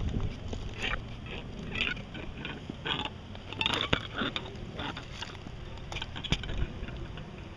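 Footsteps crunching on a stony, drained oyster bed, irregular and about once a second, over a steady low rumble.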